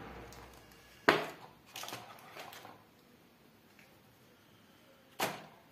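Unboxing handling noise: a sharp knock about a second in, then paper and packaging rustling, and another sharp knock near the end as the charger and phone are set down.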